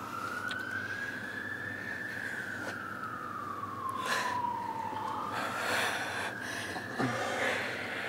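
A siren wailing slowly, a single tone gliding up and down, falling to its lowest about five seconds in and then rising again. A few short, soft noises sound over it in the second half.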